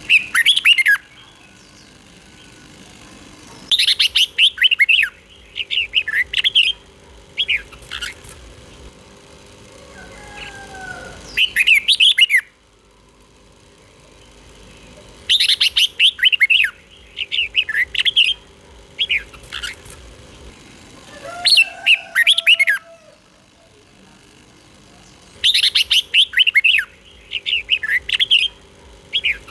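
Red-whiskered bulbul singing: short, bright, warbling phrases in quick clusters of notes, repeated every few seconds.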